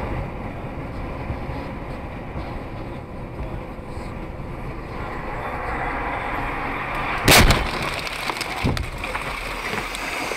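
Car driving with steady road and engine noise, then a sudden loud bang of a collision impact about seven seconds in, followed by a smaller knock.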